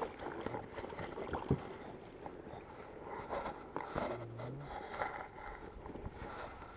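Inflatable rowing boat being rowed: oars splashing through the water and knocking in their oarlocks, with a few sharp knocks.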